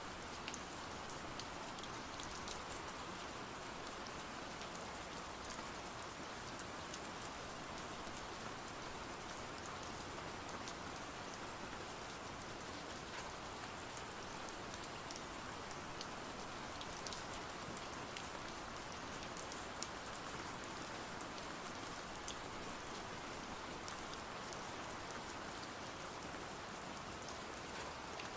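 Steady rain falling, an even hiss with scattered faint sharp ticks.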